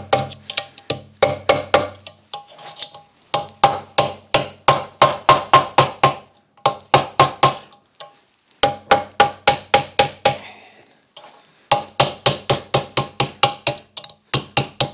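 A hand hammer striking a small metal part in several runs of quick blows, about four a second, each blow ringing briefly. The blows are to knock seized parts loose.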